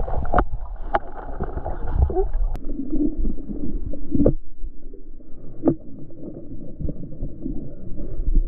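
Muffled underwater sound in a stream: a low rumble and gurgling of moving water, with several sharp clicks and knocks scattered through it.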